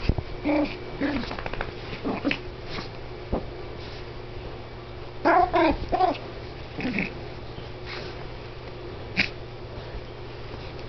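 Toy poodle puppies play-fighting, giving short, high, whiny yips and growls. A quick run of about four yelps comes about five seconds in, and a single sharp yip follows near the end.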